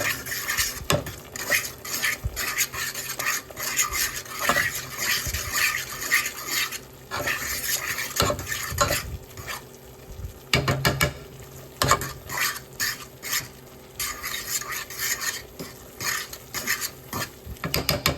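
A roux of oil, flour and butter being stirred in a hot pot: the utensil scrapes and clicks against the pot in irregular strokes, quicker near the end, over a light sizzle.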